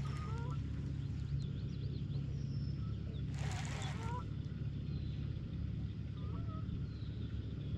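Birds calling in short rising and falling whistled notes, several times, over a steady low hum. A brief rush of noise comes about three and a half seconds in.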